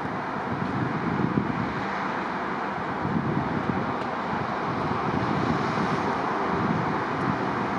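Jet engines of an Airbus A319 airliner on final approach, heard as a steady, even noise from the distant twin-jet, with wind gusting on the microphone.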